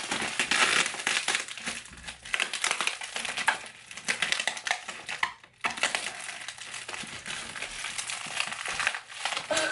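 Clear plastic wrapping crinkling and crackling as it is squeezed, pulled and twisted by hand in an effort to tear open a tightly sealed package, with a short break a little past halfway.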